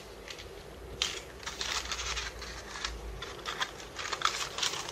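Sheets of printer paper and thermal transfer paper rustling and crinkling as hands slide, lift and line them up on a clipboard, starting about a second in.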